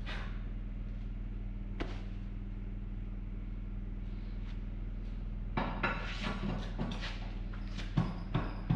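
Steel tools clinking and clanking as they are handled, a scattered run of them in the last three seconds with a couple of heavier knocks near the end, over a steady low hum.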